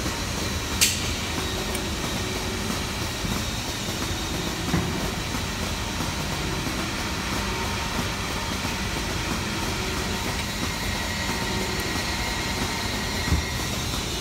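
Steady mechanical rumble of a workshop, with a few sharp metal clicks of hand tools and screws against the steel die plates of a punching machine being assembled. The loudest click comes about a second in, another near the middle and one near the end.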